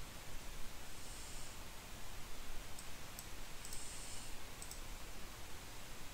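Faint computer mouse button clicks, several of them, some in quick pairs, over a steady low background hiss.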